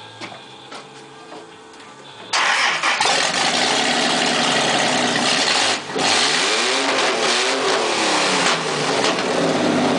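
Fuel-injected 3.9-litre V6 from a 1993 Dodge Dakota catching about two seconds in and running very loudly with no exhaust fitted: a freshly assembled engine that has not run in three years. It dips briefly near six seconds, then is revved up and back down.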